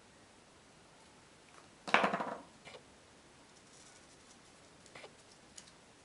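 A short burst of paper rustling about two seconds in as a glued paper strip is set down and pressed onto a cardstock scrapbook page by hand, followed by a few faint taps.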